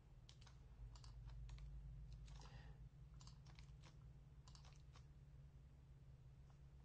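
Faint, irregular clicks of computer keys and a mouse as commands are entered, over a low steady hum.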